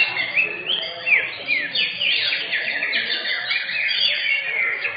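Cucak hijau (green leafbirds) singing in a songbird contest: a dense, unbroken stream of fast chirps and sweeping whistles, with several birds overlapping.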